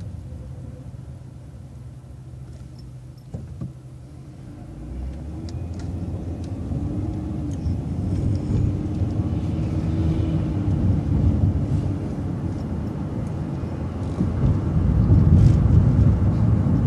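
Transit bus idling quietly, then pulling away and accelerating about four seconds in. The engine rumble grows louder and a drivetrain whine rises in pitch, then levels off.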